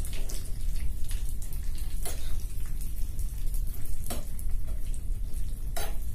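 Chopped cashews, almonds, walnuts and raisins frying in ghee in a non-stick pan over a low gas flame: a continuous fine crackling sizzle. A steel spoon stirring the nuts knocks or scrapes against the pan four times, about two seconds apart.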